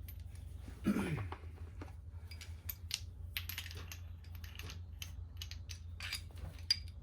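Irregular light metallic clicks and taps from a lug nut socket being fitted and worked onto a partly rounded lug nut, over a steady low hum.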